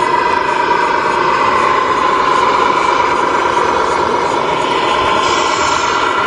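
Radio-controlled scale model MAN semi-truck driving, giving a steady engine-like hum with one strong mid-pitched tone and no rise or fall.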